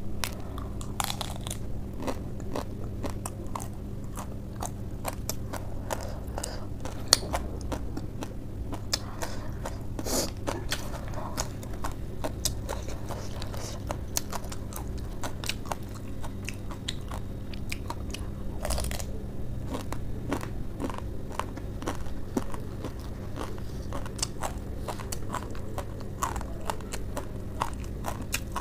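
Crisp, repeated crunching and chewing as spicy Wai Wai noodles wrapped in lettuce and cabbage leaves are bitten and eaten, several crunches a second, the sharpest about seven seconds in. A faint steady hum underneath.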